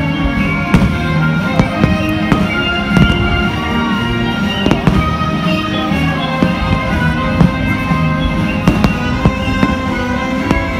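Fireworks bursting overhead in a string of irregular sharp bangs, over loud music playing throughout.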